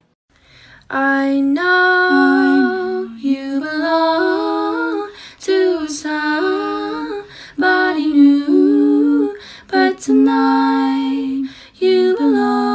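A woman's voice singing a slow tune in long held notes, phrase after phrase with short breaks between them.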